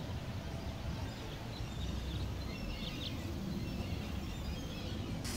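Faint outdoor street ambience: a low, steady rumble, with a few faint high chirps about halfway through.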